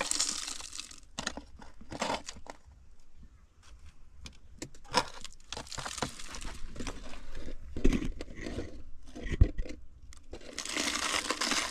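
Metal spade scraping and crunching through wood ash as the ash is scooped and sprinkled into a fireplace: irregular scrapes and clicks, with two sharper knocks about two-thirds of the way through.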